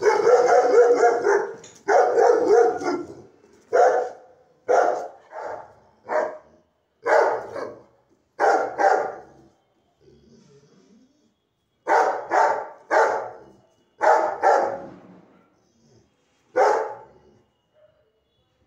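Rottweiler barking loudly, about fifteen barks in runs, often in quick pairs, with a break of about two seconds in the middle.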